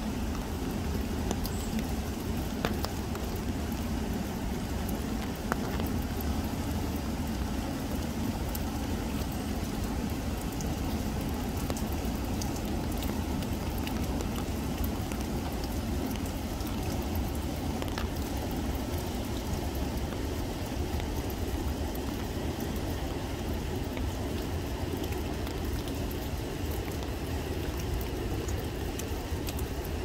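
Steady rain pattering on wet leaves, with scattered drop ticks, over the low, even rush of river water running over rocks.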